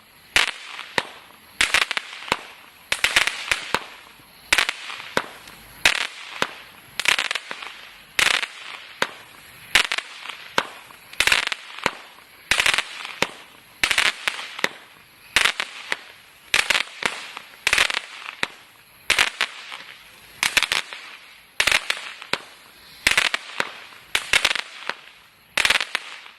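Total FX 'Crackling Wood' 49-shot crackle-effect firework cake firing, a shot about every second, each bursting into a brief spell of dense crackling. The shots stop just before the end.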